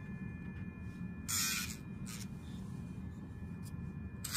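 Battery-powered dog nail grinder running with a steady hum and thin whine as it files a dog's claws. There are two brief hissing bursts, about a second in and again near the end.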